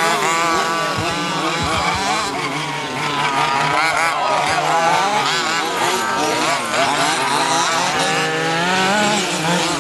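Several small nitro engines of 1/8-scale RC off-road buggies racing, high-pitched and overlapping, each revving up and down as the cars accelerate and brake around the track.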